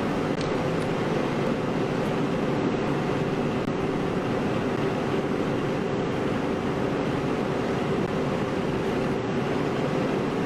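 A steady, unchanging mechanical drone with a faint constant hum in it.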